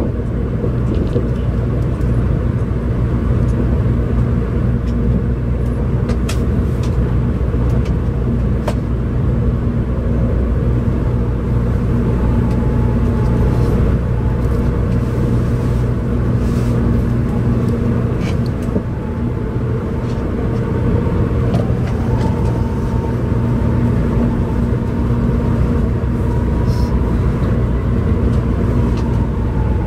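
Cabin noise of a 700 Series Shinkansen train running at speed: a loud, steady low rumble with a faint high whine above it and a few light clicks.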